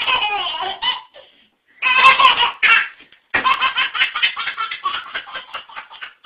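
A baby belly-laughing in three fits: two short ones, then a long run of quick, repeated laughs at about four or five a second.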